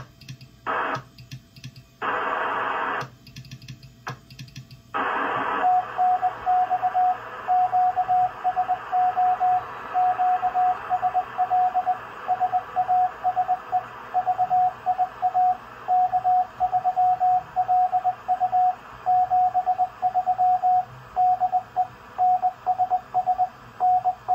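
Amateur radio transceiver sounding Morse code (CW): a single steady tone keyed on and off in dots and dashes over receiver hiss, starting about six seconds in. Before it, two short bursts of radio hiss.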